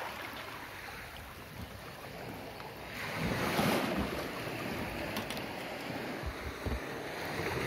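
Sea waves washing in and breaking, swelling louder about three seconds in, with wind buffeting the microphone.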